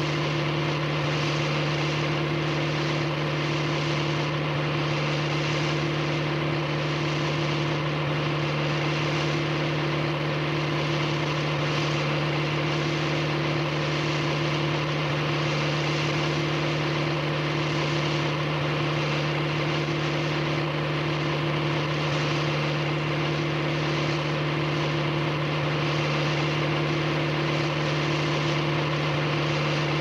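Car driving at a steady moderate speed: a constant low hum over road noise, with no change in pitch or level.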